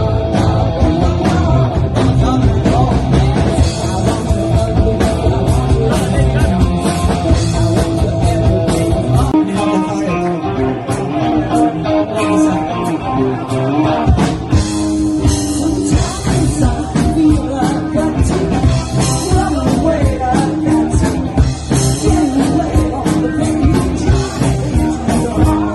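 Live rock band playing, with singing and electric guitar. The bass end drops out for a few seconds about nine seconds in, then comes back.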